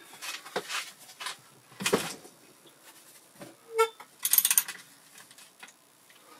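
Ratchet wrench working the drain plug on an 02M gearbox casing: a few metallic knocks and clicks of the socket, a short squeak about four seconds in, then a brief run of ratchet clicking.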